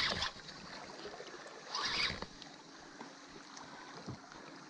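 Steady rush of river current around a wooden boat, with two short scratchy noises about two seconds apart, the first right at the start.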